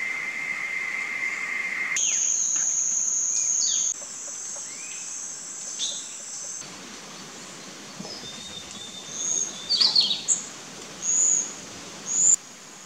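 Forest insects droning steadily, the drone jumping abruptly to a different pitch a few times, with short whistled bird calls in the last few seconds, the loudest sounds here.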